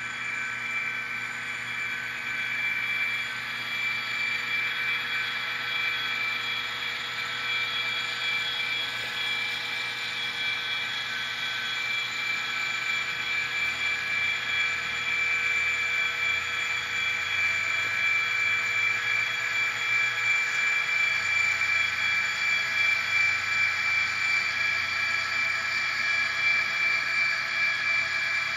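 ESU sound decoders in N scale Atlas GP39-2 and Intermountain SD40-2 model locomotives playing EMD diesel engine sound through their small speakers as the consist runs: a steady, tinny drone that grows louder in the second half, with a faint regular pulse.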